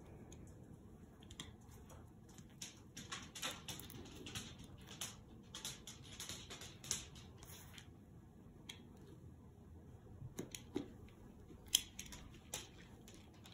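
Small irregular clicks and rustles of a small plastic hand tool being worked in the fingers, dense for the first half, then a few sharper single clicks near the end.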